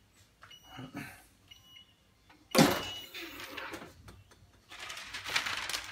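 Digital timer of a clamshell heat press beeping faintly about once a second as it counts down its last seconds. A sharp knock comes about two and a half seconds in, and a rustling, crackling noise near the end.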